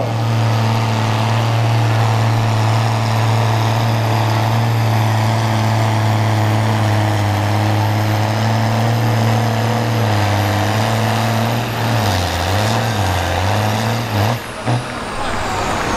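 Valmet 110ID tractor's six-cylinder turbo MWM diesel running flat out at a steady pitch while pulling the sled down the track. About twelve seconds in, the revs waver up and down, and near the end the engine drops off sharply with a couple of short blips.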